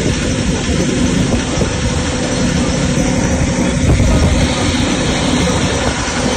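Motorboat engine running steadily under load while towing a parasail, mixed with the rush of wind and water at speed.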